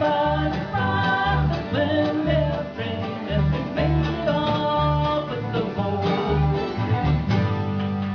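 Live bluegrass band playing: banjo, mandolin and guitar picking over an upright bass thumping about two notes a second.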